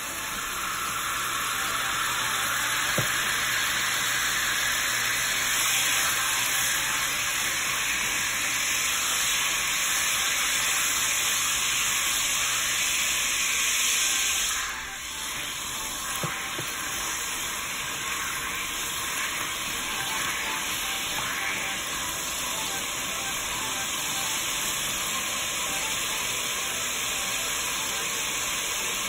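Water sizzling and bubbling in a hot enamelled cast-iron Dutch oven as it deglazes the browned meat drippings to start a gravy. The steady sizzle eases somewhat about halfway through.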